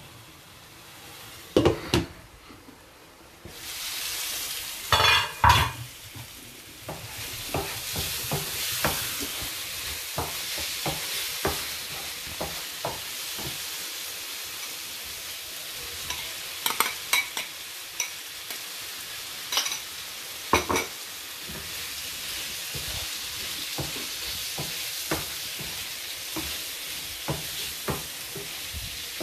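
Chopped onions sizzling in a frying pan on a gas hob, stirred with a wooden spoon that knocks against the pan now and then. The sizzle is quieter in the first few seconds and becomes steady from about four seconds in.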